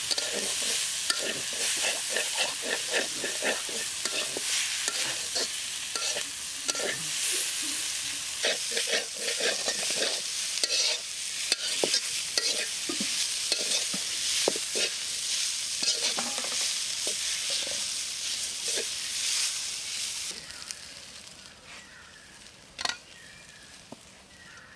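Green banana pieces frying and sizzling in a black iron karahi, with a metal spatula scraping and knocking against the pan as they are stirred. About four-fifths of the way through the sizzling drops away, leaving a quieter stretch with one sharp knock near the end.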